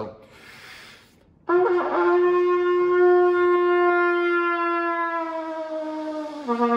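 A brief breath intake, then a trumpet plays one long slurred note from concert F that sags slowly in pitch and drops to concert B-flat near the end. It is a slow 'dive bomb' slur played with the jaw dropping open, an exercise to open up a pinched tone.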